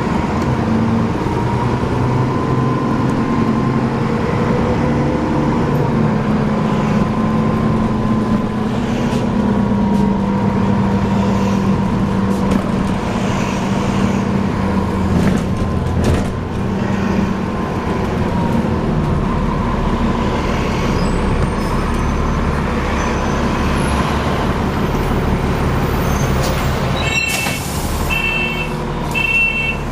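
Alexander Dennis Enviro 400 double-decker bus running, heard from on board, with a steady high whirring whine over the drivetrain noise. Near the end comes a brief hiss of air, then a run of short high beeps.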